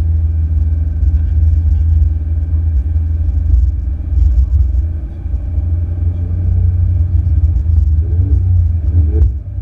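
Ferrari 488 GTB's twin-turbo V8 on the move: a steady, deep rumble of engine and road noise.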